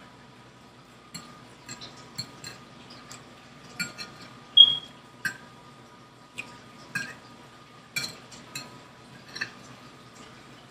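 Metal fork clinking and scraping against a dinner plate while cutting and picking up food, about a dozen separate clinks. The loudest, about four and a half seconds in, rings briefly.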